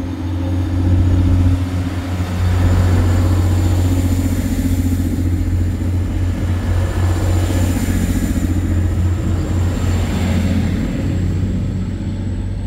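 Diesel train's engine running with a steady low rumble and a faint high whine that rises slowly.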